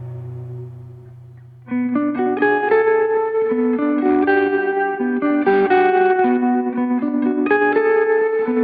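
Background music: a held low chord fades out, and about two seconds in a plucked guitar begins a steady picked melody.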